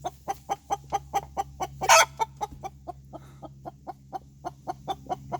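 A hen clucking rapidly and evenly at roost, about five clucks a second, with one louder squawk about two seconds in. She is disturbed at night: the owner takes her for stressed by his light. A faint steady low hum runs underneath.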